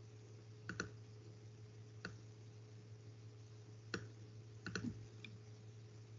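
Several faint, sharp clicks at a computer, irregularly spaced, over a steady low electrical hum.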